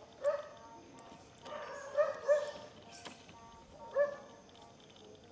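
Short, sharp animal calls: four of them in about four seconds, two close together near the middle.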